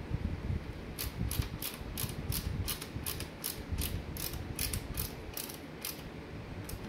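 Hand ratcheting screwdriver clicking in a quick steady run, about four to five clicks a second, as a screw is driven through a graphics card's bracket into a wooden frame. The clicking starts about a second in and stops shortly before the end.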